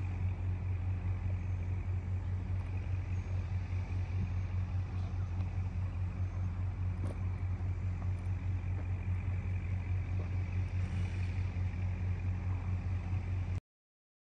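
A steady low hum that cuts off suddenly near the end.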